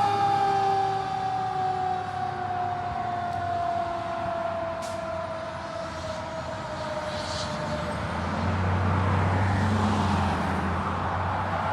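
Fire truck siren winding down, its pitch falling slowly for about eight seconds until it fades out. A heavy truck engine then runs louder under a broad road-noise hiss.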